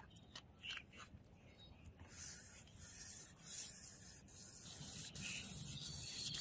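Sandpaper rubbed by hand along the groove of a metal katana blade: a scratchy hiss in repeated strokes. It starts faintly and grows louder from about two seconds in.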